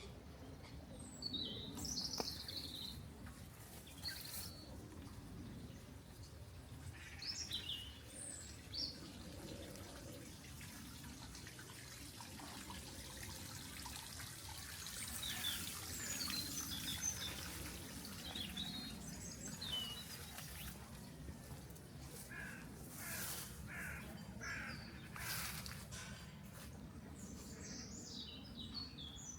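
Small garden waterfall splashing steadily, with songbirds chirping over it in short high calls. A few brief rustling noises come about halfway through and again near the end.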